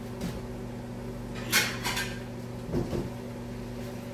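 Kitchen clatter out of sight: one sharp clack about a second and a half in, a smaller one just after, and a couple of duller knocks near the three-second mark. A steady low hum runs underneath.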